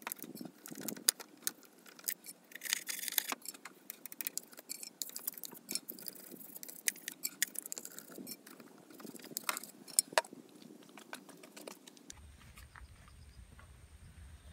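Irregular metallic clicks, taps and scrapes of a hand tool working on the carburetor fittings of a Honda Dio scooter. Near the end the clicking stops and only a low steady hum remains.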